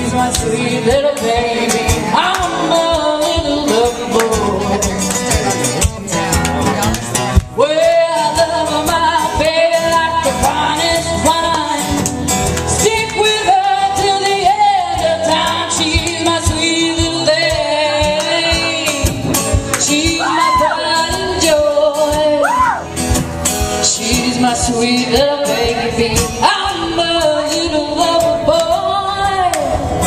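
Live acoustic duo performing a song: a voice singing over strummed acoustic guitar.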